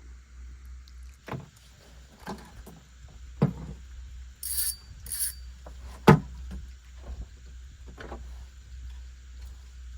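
Handling noise: about five irregular knocks and clicks, the loudest about six seconds in, with two short hissing bursts in the middle.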